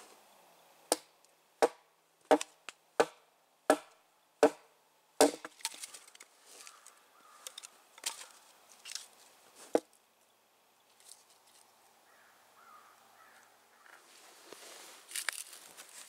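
Hatchet chopping firewood on a log: about eight sharp wooden strikes in quick succession, then two more scattered blows, followed by quiet and some rustling near the end.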